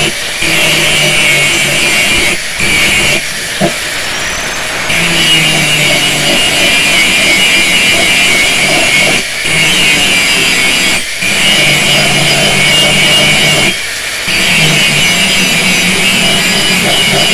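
Electric angle grinder with an abrasive disc grinding the steel blade of a meat cleaver. The motor runs with a steady whine and a grinding hiss, dipping briefly about five times.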